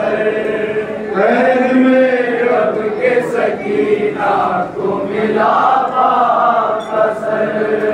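Men's voices chanting a noha, a Shia mourning lament, in long held melodic lines, with several voices singing together.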